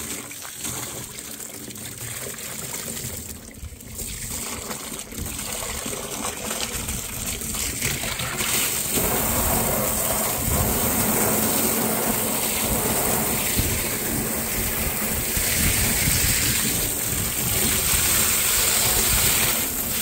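A hose spraying a jet of water into an empty plastic feed tub, rinsing out spent-grain residue: a steady spray of water hitting the plastic, louder from about eight seconds in.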